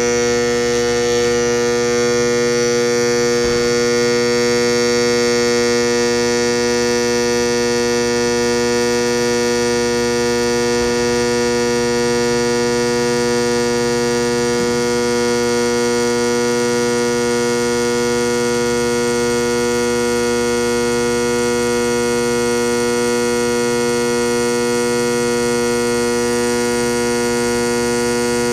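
Induction bearing heater humming loudly and steadily at mains frequency while it heats a small bearing so it will slide onto the shaft.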